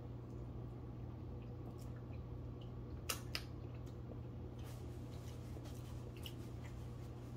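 Quiet handling of a sauce packet and food by hand, with scattered faint ticks and two sharp clicks close together about three seconds in, over a steady low hum.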